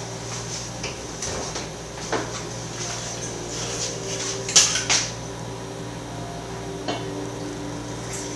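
Scattered clinks and knocks of a glass liquor bottle and blender jar being handled and the bottle cap worked open, the loudest pair about four and a half to five seconds in, over a steady low hum.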